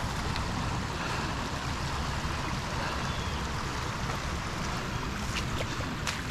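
Water rushing steadily out of a lake drain freshly cleared of storm debris, a full torrent of pond water pouring through the outlet, over a low rumble, with a couple of faint clicks near the end.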